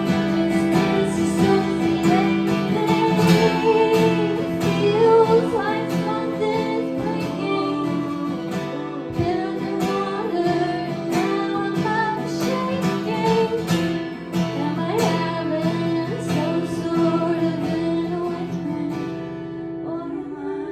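Live acoustic guitar strummed steadily while a woman sings.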